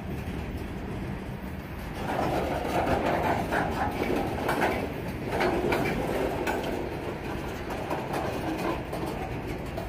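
CSX freight train's centerbeam lumber flatcars rolling past: a steady rumble of steel wheels on the rails. From about two seconds in, it grows louder for a few seconds with clacking as the cars' wheel trucks go by.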